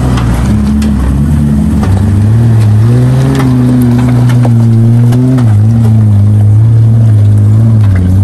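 Mitsubishi Pajero's engine working under load as the 4x4 crawls over loose rocks in low speed. The revs rise about two seconds in, hold steady, ease off a little after five seconds and pick up again near the end. Rocks crunch and knock under the tyres throughout.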